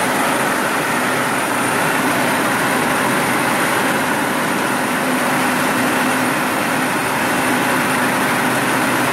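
Piston engine and propeller of a high-wing single-engine jump plane, heard from inside the cabin as a steady, loud drone with rushing air, unchanging throughout. It is the climb-out just after takeoff, the engine at climb power.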